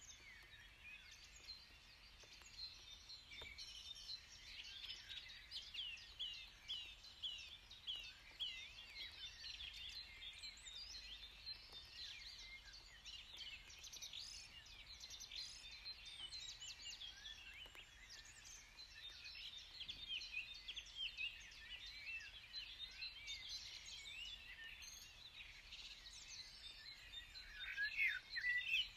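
Faint chorus of small birds chirping, many short high calls overlapping, growing a little louder near the end.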